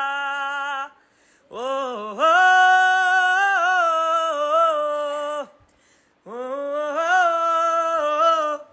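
A man singing unaccompanied, drawing out long notes with vibrato in three phrases separated by short breaths. The passage is a sustained melismatic run within a Hindi film song.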